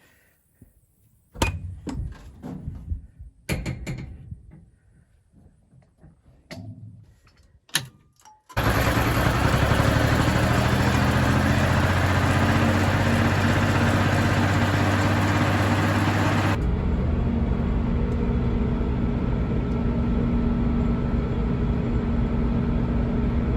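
A few scattered knocks and clunks, then a combine harvester's engine running loud and steady from about eight seconds in. Later the high hiss drops away while the engine keeps running.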